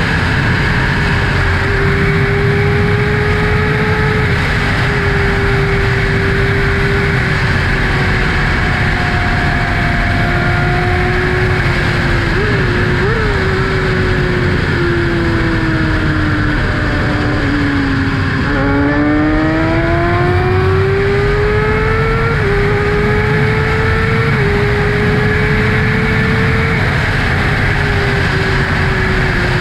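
2012 Kawasaki ZX-6R inline-four engine running through an M4 Tech 1 exhaust while riding. The engine note sinks slowly as the bike eases off, climbs steeply as it accelerates about two-thirds of the way through, then drops in a few steps near the end. Wind rushes over the microphone throughout.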